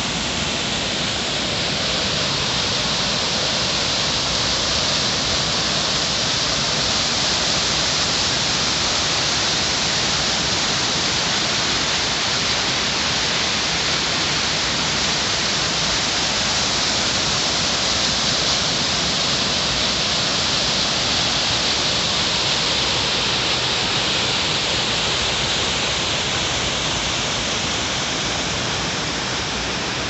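Waterfall and rapids of a swollen river: a steady rush of water pouring over rock, easing a little near the end.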